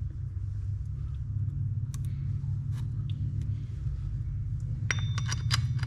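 Small metal reel parts and washers clicking and clinking as a spinning reel is put back together: a few light clicks, then a quick run of sharp clinks with a brief ringing note near the end, over a steady low hum.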